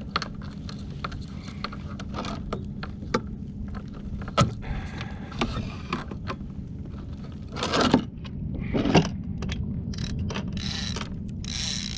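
Scattered clicks, knocks and scraping of a fishing rod and reel being handled in a kayak, with two louder rustling bursts about two thirds of the way through, over a steady low rumble.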